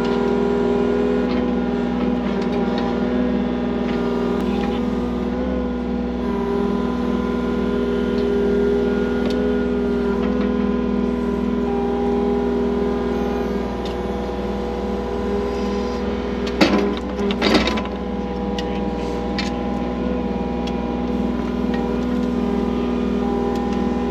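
Skid loader engine running steadily, with a brief loud clatter about two-thirds of the way through.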